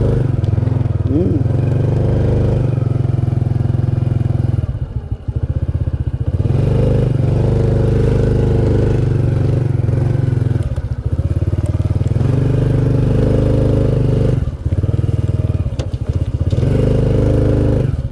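Honda underbone motorcycle's small single-cylinder engine running as the bike is ridden slowly. The engine note dips and picks up again several times, about 5, 11, 14 and 16 seconds in.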